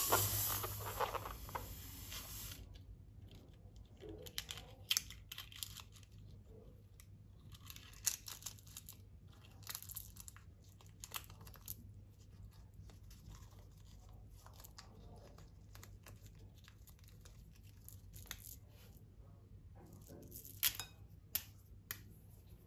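Slime being squeezed and worked by hand, with plastic crinkling. There are irregular sticky crackles and clicks, and a hiss for about the first two seconds.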